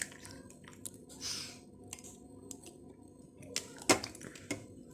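Scattered clicks and scrapes of kitchen utensils and dishes being handled, with a short hiss about a second in and a sharp knock near four seconds in.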